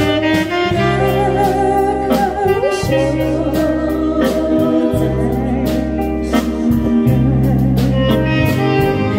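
A live band playing a ballad on keyboard, electric guitar, bass and saxophone, with a woman singing into a microphone over it.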